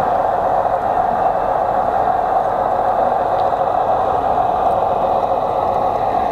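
LGB G-scale model diesel locomotive and boxcar rolling past: a steady whir of the electric motor and gearing with wheel noise on the rails.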